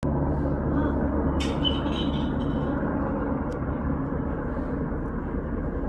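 Helicopter overhead, with a steady low rotor and engine rumble. A brief higher-pitched sound comes in about a second and a half in, and a single click follows about halfway through.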